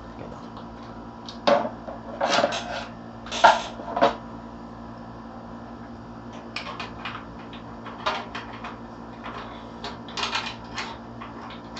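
Metal PC case parts being handled and fitted: a quick cluster of loud knocks and clatters, then lighter scattered clicks as the pieces are worked into place.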